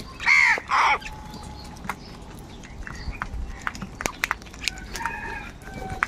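House crows cawing while they feed: two loud, harsh caws in quick succession just after the start, then softer calls and scattered sharp clicks.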